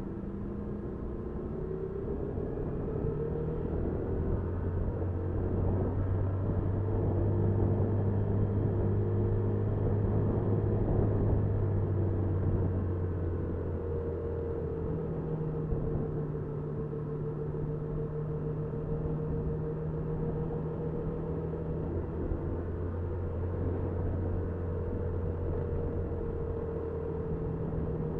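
Motorcycle engine running while riding, picked up by the bike's dashcam along with road and wind noise. The engine note shifts in pitch every several seconds and grows louder toward the middle, then eases back a little and holds steady.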